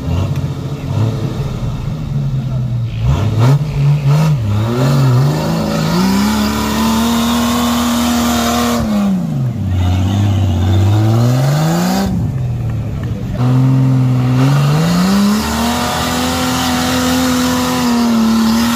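Off-road Jeep's engine revving hard under load as it climbs a muddy slope, in repeated surges. The revs climb and hold high for a few seconds, drop back, then climb again.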